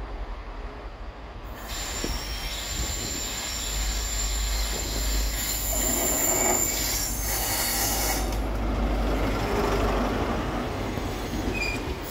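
An HST (InterCity 125) running into the platform, led by a Class 43 diesel power car. A steady, high-pitched wheel squeal sets in about two seconds in and fades after about five seconds, over loud train running noise as the power car and Mk3 coaches pass close by.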